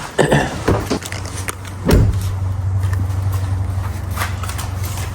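Clicks and handling noises, then a car door shutting with a thump about two seconds in, followed by a steady low hum.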